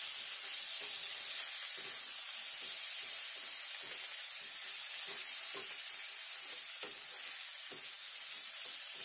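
Bitter gourd and potatoes sizzling in an aluminium kadai while a spatula stirs them, with irregular short scrapes against the pan.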